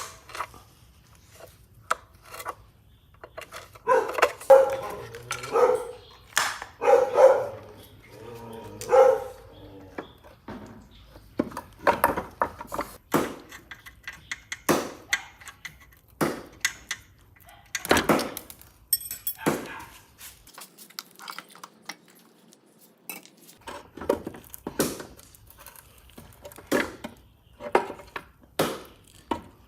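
Metal parts and hand tools of an industrial threading machine being handled, a long series of separate sharp knocks and clinks. Between about four and nine seconds in there is a denser run of louder strikes with a pitched ring.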